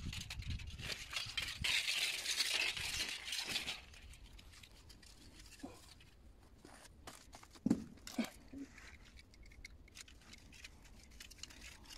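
Hand-work noise on a medium-voltage cable joint: rustling and scraping for about four seconds, then scattered clicks and clinks of tools and cable being handled, with a couple of knocks near the middle.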